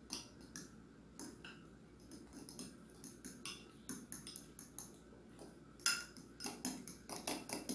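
A metal spoon stirring a banana, egg and oat-bran batter in a glass bowl, with irregular clinks and scrapes against the glass. The strokes come faster and louder over the last couple of seconds.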